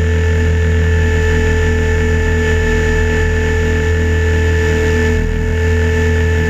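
Align T-Rex 550 electric RC helicopter's motor and rotors, heard from a camera mounted on the airframe: a steady whine over a low rotor hum, holding one pitch throughout.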